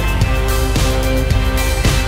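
Background music with a steady beat and sustained chords.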